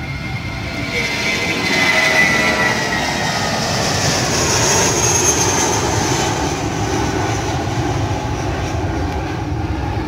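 Airbus A320 jet engines at take-off thrust as the airliner lifts off and climbs away. The sound grows louder over the first two seconds, carries a high whine that drops slightly in pitch, and eases off gradually toward the end.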